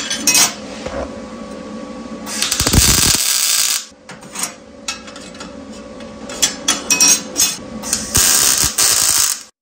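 MIG welder striking tack welds on steel flat bar: a burst of arc noise about two and a half seconds in lasting over a second, and another near the end, with scattered clicks and knocks of handling between.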